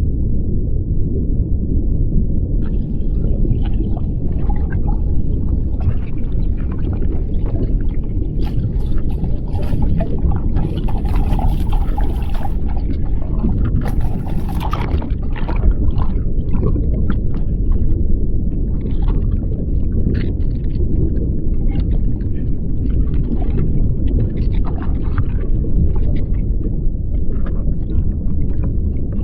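Underwater sound picked up by an action camera in its waterproof housing: a steady, muffled low rumble of moving water. Scattered clicks and crackles come in after a couple of seconds and are densest in the middle.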